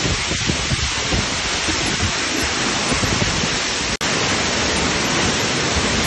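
Tall waterfall pouring down a rock face, a steady rushing of falling and splashing water, with a split-second break in the sound about four seconds in.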